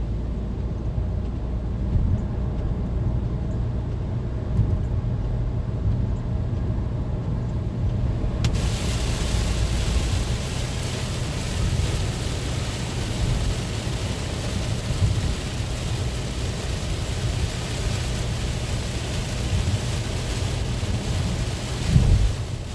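Heavy rain pouring as an even hiss over a steady low rumble. The rain's hiss comes in suddenly about eight seconds in, before which only the rumble is heard.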